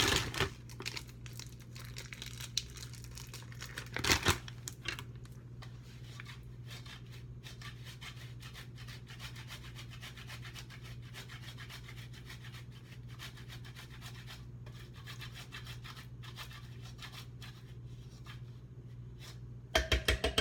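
Hard cheese being grated by hand: a long run of quick, light scraping strokes against the grater, with a louder knock about four seconds in.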